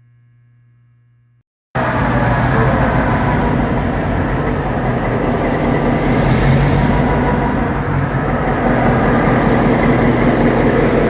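Faint hum, then about two seconds in a cut to an EMD SD38-2 diesel locomotive's non-turbocharged V16 engine running loud and steady, close by.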